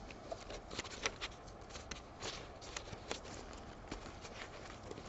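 Scraps of paper and cardstock rustling and tapping as they are flipped through by hand in a crowded storage box: a string of faint, irregular clicks and soft shuffles.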